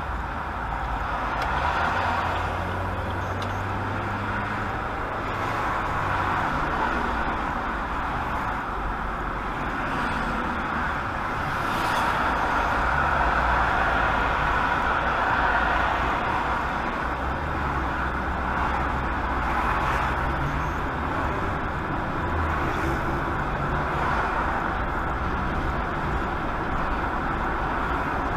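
Steady road noise of a car cruising at highway speed, heard from inside the cabin: an even tyre hiss over a low rumble from the engine and road.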